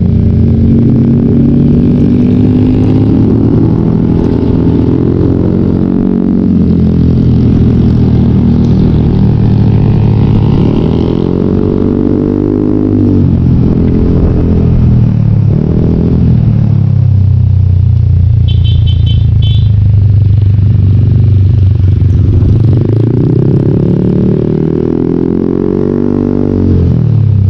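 A vehicle engine running close by, its pitch repeatedly rising and falling as it speeds up and slows down.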